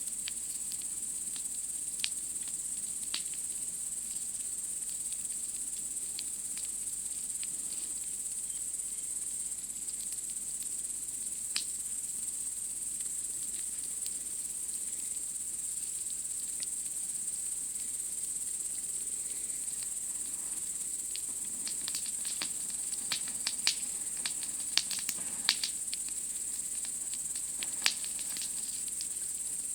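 Steady high-pitched chorus of night insects, with a campfire crackling: scattered sharp pops, then a denser run of pops in the last third.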